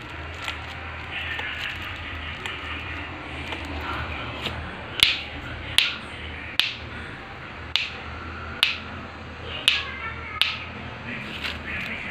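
Seven sharp hand claps, about one a second, starting about five seconds in, made to trigger a sound-activated clap switch that turns a light bulb on and off.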